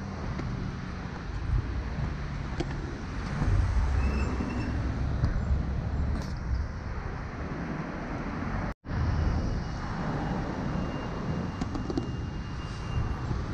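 City street traffic: cars driving past close by, a steady rumble of engines and tyres that swells and fades as each vehicle passes. The sound cuts out for a split second just under nine seconds in.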